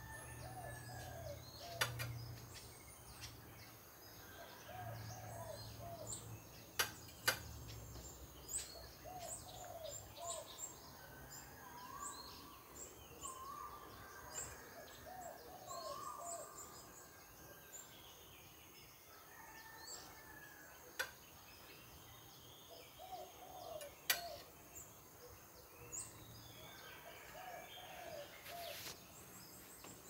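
Birds calling: one repeats a short phrase of four or five low notes every few seconds among scattered higher chirps, over a steady high insect whine. A few sharp clicks stand out, the loudest a couple of seconds in, twice close together about seven seconds in, and once near the end.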